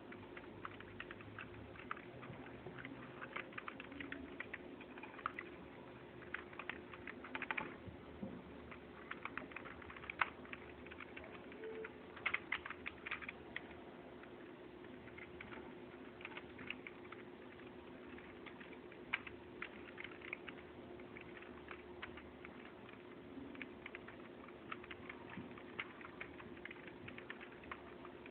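Computer keyboard keys clicking in irregular, uneven taps, with a faint steady hum underneath.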